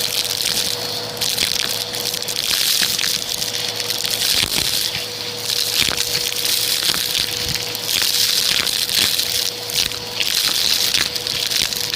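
Vacuum cleaner running with a dust brush attachment: a steady motor hum under a rushing air hiss that swells and eases as the brush is worked back and forth, with small clicks scattered through it.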